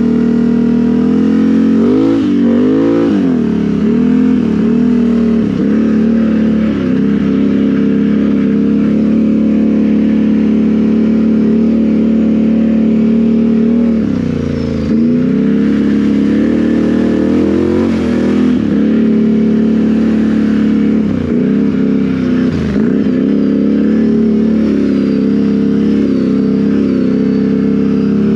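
Can-Am Renegade XMR 1000 ATV's V-twin engine, fitted with RJWC dual exhausts and a Monster Tune, running hard under way. Its pitch dips and climbs back several times as the throttle is let off and opened again: a couple of seconds in, about halfway, and twice more past the middle.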